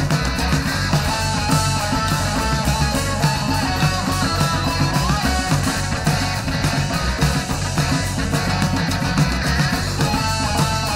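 Instrumental psychedelic rock: a guitar playing a melody line over bass and a steady drum beat, with no singing.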